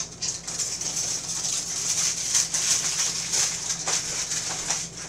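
Freshly baked chicken enchiladas sizzling in their metal baking pan straight from the oven: a steady high hiss with many small pops.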